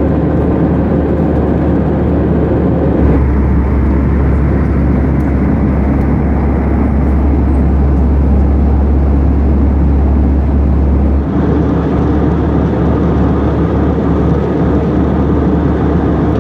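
Steady cabin noise of an Airbus A319 airliner in cruise: a loud, even rush of air and engine sound with a deep hum beneath. The low hum grows stronger and the hiss duller about three seconds in, then shifts back about eleven seconds in.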